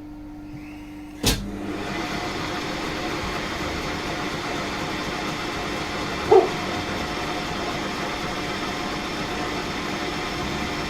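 Smart & Brown lathe switched on with a clunk about a second in, then running steadily. A brief ringing clink about six seconds in.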